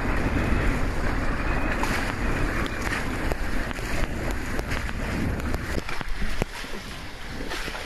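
Wind buffeting the microphone over the rush of waves and water past a small sailboat's hull, easing off somewhat near the end.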